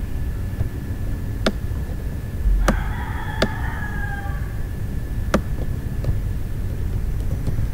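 Four sharp computer-mouse clicks over a steady low background rumble and a faint steady high tone. About three seconds in, a drawn-out pitched call of about a second and a half sounds in the background, falling at its end.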